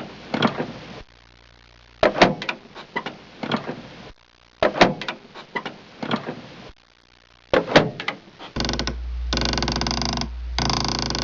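Clusters of sharp mechanical clicks and knocks, three times about two and a half seconds apart, each lasting about a second. Near the end a different steady noise with a low hum starts, broken by short gaps.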